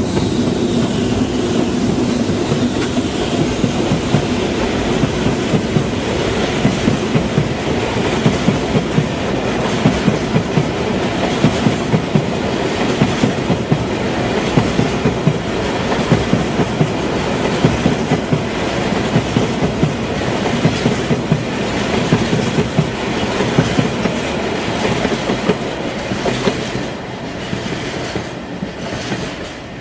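A freight train passing close by, its wagons' wheels clicking steadily over the rail joints above a continuous rumble. It eases off over the last few seconds as the train goes by.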